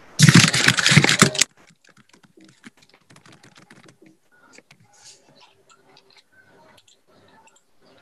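Handling noise right at a laptop's microphone: a loud rustling burst lasting about a second, then a long run of faint, light clicks and taps like keys or a mouse being handled.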